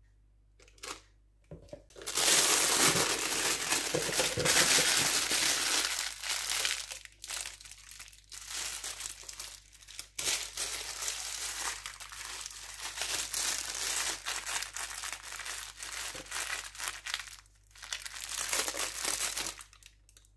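Piping bag crinkling and rustling as it is filled with whipped cream and handled. The loudest rustling starts about two seconds in and lasts about four seconds, then comes and goes more softly.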